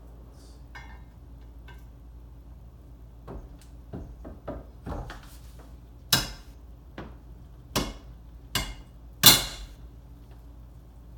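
Sharp hammer knocks seating a freezer-chilled main bearing into a Yamaha WR450F engine case fresh from the oven. First a few light taps, then four loud strikes in the second half, the last the loudest.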